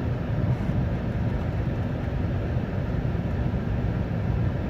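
Steady low rumble of a 2008 Chevy Tahoe Z71 under way on a snowy road: engine and road noise heard from inside the cabin.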